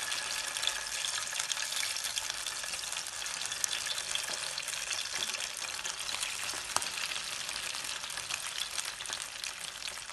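Marinated chicken pieces sizzling in hot oil in a frying pan as they are laid in, a steady sizzle thick with fine crackles.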